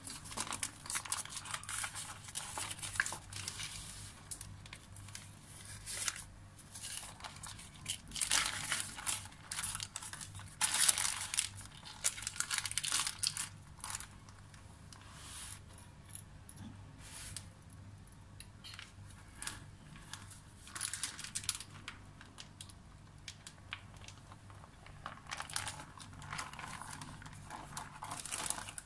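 Baking paper rustling and crinkling as it is peeled off a rolled sponge cake, in irregular handfuls of rustles, busiest in the middle and again near the end.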